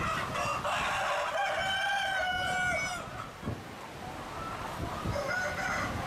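Rooster crowing: one long crow held about three seconds, ending with a slight drop in pitch, and a second crow starting near the end, over hens clucking.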